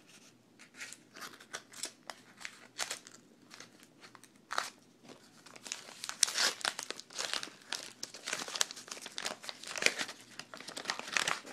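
Plastic wrappers of trading card packs crinkling and crackling as they are cut open with scissors and handled. Scattered crackles at first, much busier from about halfway through.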